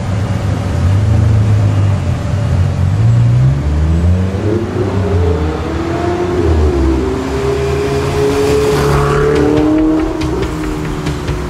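Ferrari 488 GTB's twin-turbo V8 revving as it pulls through traffic, its pitch rising and falling several times and holding a higher steady note near the end before dropping back.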